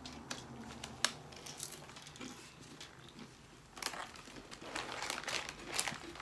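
Crinkling and crackling of a snack-chip bag being handled, in irregular bursts that get busier about four seconds in.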